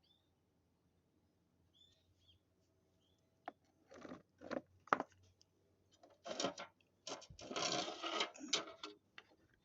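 A sharp click, then a series of short scraping and rustling handling noises, with a few faint bird chirps in the first seconds.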